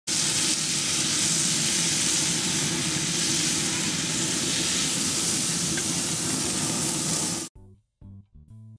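Steaks sizzling over open flames on a grill, a steady loud hiss that cuts off suddenly about seven and a half seconds in. A few plucked guitar notes follow near the end.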